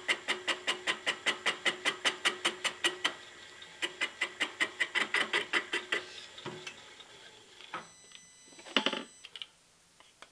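A milling machine's boring head is taking an interrupted cut in a cast-iron bearing block bore. The cutter strikes the metal once a revolution, making an even, ringing tick about five or six times a second: it touches only the worn, off-centre part of the bore. The ticking stops about six seconds in, and a few knocks of the tool and part being handled follow.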